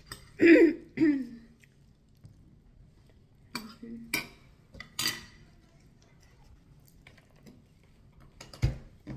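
Metal fork clinking against a plate a few times, sharp separate clicks, while eating. Just before them comes a short voice sound, and near the end there is a dull thump.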